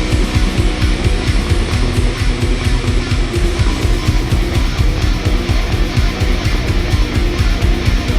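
Rock band playing an instrumental intro live: heavy electric guitars over a fast, driving drum beat.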